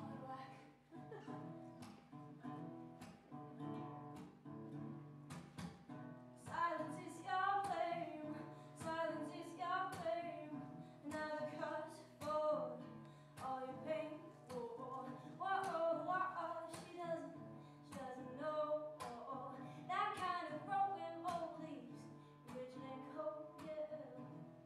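A woman singing and playing acoustic guitar. The guitar plays alone at first, and her voice comes in about six seconds in, singing phrases over the guitar to the end.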